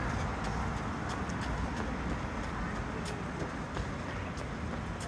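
City street ambience: a steady hum of traffic on the boulevard, with scattered light footstep clicks on the pavement.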